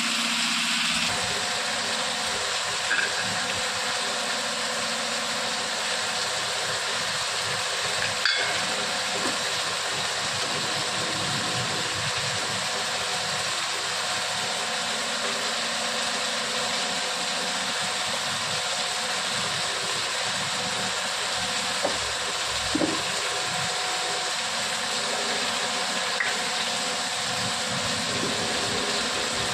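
Cauliflower and onions frying in oil in a pan: a steady sizzle, with a few brief clicks of the stirring spoon.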